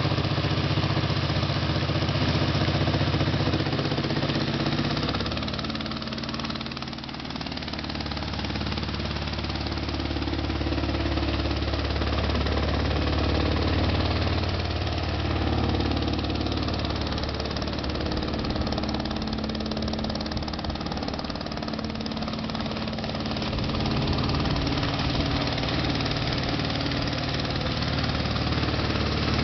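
Inboard engine of a small homemade wooden motor boat running steadily under way, its hum dropping for a couple of seconds about six seconds in and then coming back up.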